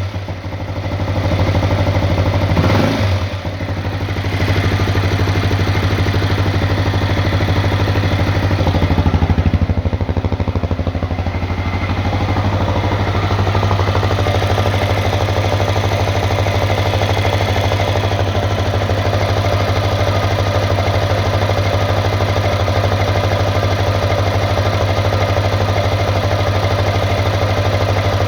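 Honda CRF250L single-cylinder engine running with the knock it is being recorded for; it is briefly revved about three seconds in, then runs steadily.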